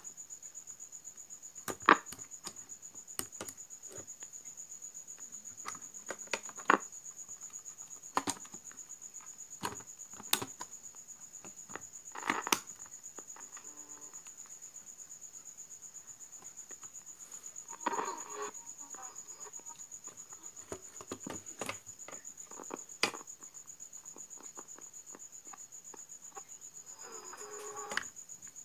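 A cricket chirps steadily in a fast, high-pitched pulse throughout. Sharp clicks and crackles come at irregular moments as the radio's circuit board and wiring are handled, with short bursts of crackly radio noise about 18 seconds in and again near the end.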